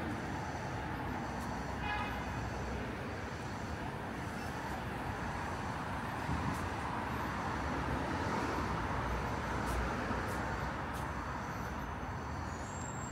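Street traffic noise from vehicles running along a city road, swelling briefly as one passes closer about eight to ten seconds in.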